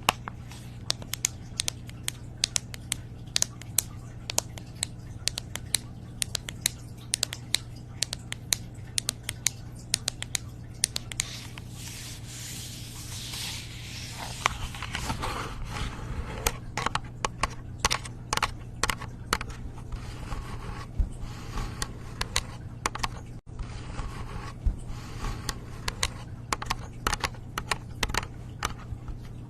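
ASMR tapping and scratching on an object: quick, irregular clicks throughout, with a stretch of continuous scratching about halfway through.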